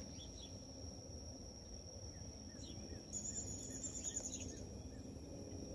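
Faint outdoor ambience: a steady high insect trill with scattered short bird chirps over a low background rumble, and a rapid pulsing trill starting about three seconds in and lasting about a second and a half.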